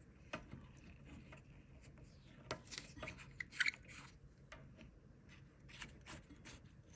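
Faint handling noises on a workbench: scattered small clicks, ticks and rubbing as the amp's old, dried-out speaker cable and chassis are handled, with a cluster of sharper ticks around the middle.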